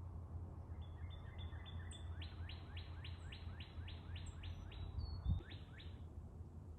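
A songbird sings a quick series of about a dozen repeated down-slurred notes, with fainter high chirps from other birds. Under them runs a steady low rumble, and there is a single low thump near the end.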